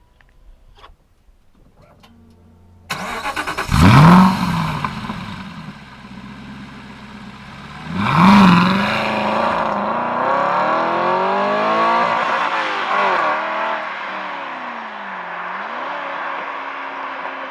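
Aston Martin V8 Vantage's V8 starting up: a few faint clicks, then the starter cranks about three seconds in and the engine catches with a loud flare of revs. It blips loudly once more a few seconds later, then settles into a high fast idle that slowly falls and steadies, typical of a cold start.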